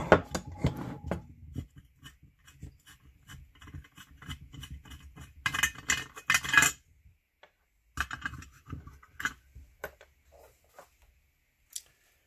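Light metallic clicks and scrapes from fingers working a freshly loosened screw on a Weber IDA carburetor's cast body and handling small metal parts, with a denser run of clatter a little past halfway and scattered clicks after it.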